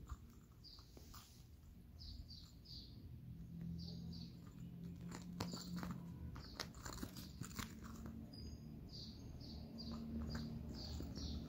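A cat pouncing on and batting a small toy ball under a blanket on carpet: soft scuffles with scattered light clicks and knocks. Short high chirps come in quick runs of two to four, several times.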